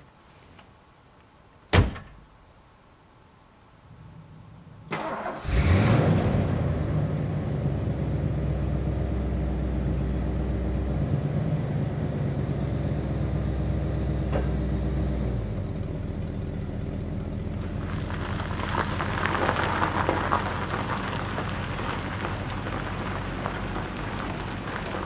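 A car door slams shut about two seconds in, the loudest sound. Then the 1979 Lincoln Mark V's 400-cubic-inch V8, fed by a trailer wood-gas generator, is cranked and starts about five seconds in, runs steadily, and the car moves off, tyres crunching on gravel.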